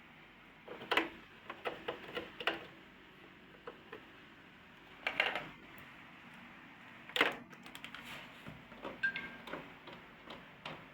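Irregular clicks and light knocks, as of small objects being handled and set down, with no steady motor running.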